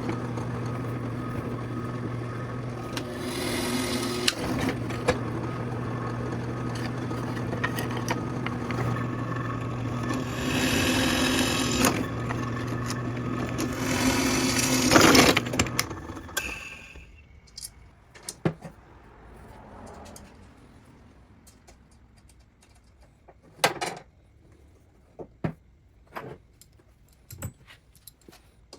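A power tool runs steadily with a constant hum and grows louder toward the end, then stops about sixteen seconds in. A few light clicks and knocks follow.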